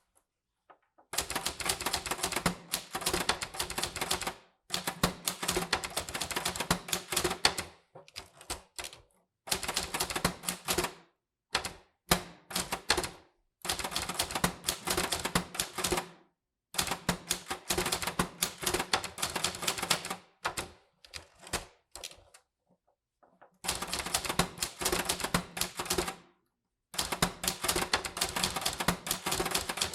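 Typewriter typing: runs of rapid key strikes, each lasting a few seconds, broken by short pauses with a few scattered single strokes between them.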